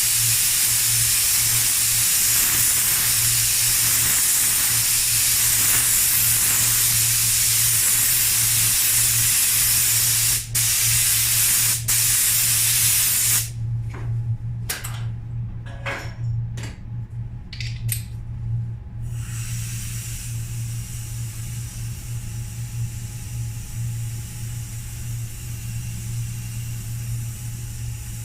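Compressed-air paint spray gun spraying, a loud steady hiss held for about thirteen seconds with two brief breaks. Then come several short trigger bursts, and it stops, leaving a steady low hum.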